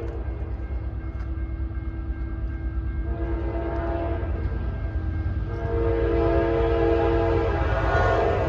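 A diesel freight locomotive sounds its multi-note air horn in long blasts, about three seconds in and again about five and a half seconds in, over the deep rumble of the train. It grows louder as it approaches.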